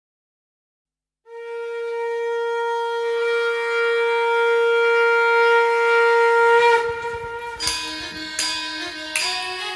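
Conch shell (shankh) blown in one long held note that swells in loudness for several seconds, then gives way about seven seconds in to a music track with regular drum strikes.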